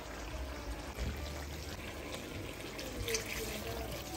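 Liquid being poured from a container into an aluminium pot of chicken stew, a soft trickling pour that grows slightly louder after about three seconds.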